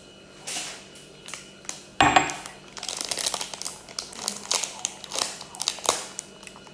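Plastic or paper packaging crinkling and tearing in quick rustles as tea things are opened, with one sharp knock about two seconds in.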